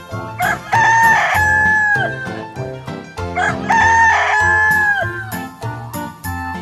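A rooster crowing twice, each crow a long held call that drops off at the end, over light background music.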